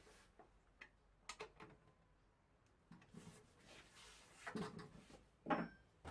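Faint scattered clicks and knocks over near silence, with two louder knocks, about four and a half and five and a half seconds in.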